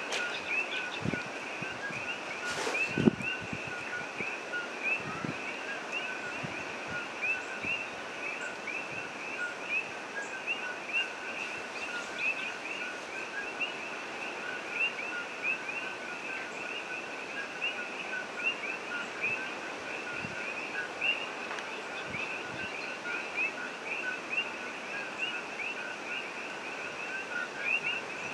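Outdoor ambience: continuous rapid chirping at two steady pitches over an even hiss. There is a sharp knock about three seconds in and a few soft low thumps scattered through.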